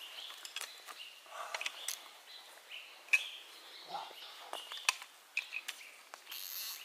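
Scattered sharp clicks and light knocks from the fishing-reel slingshot rifle being handled, with one louder click about three seconds in, over birds chirping.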